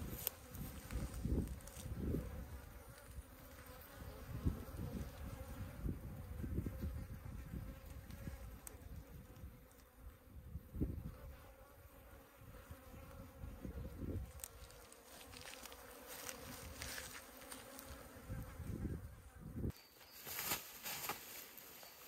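Flies buzzing in a steady drone, with gusts of wind rumbling on the microphone. Both stop abruptly near the end.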